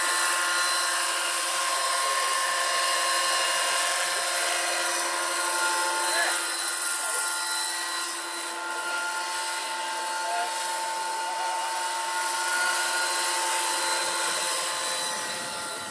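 700-size electric RC scale helicopter (Lockheed XH-51 model) flying: a steady high electric-motor whine with several held tones over the hissing swish of the rotor blades.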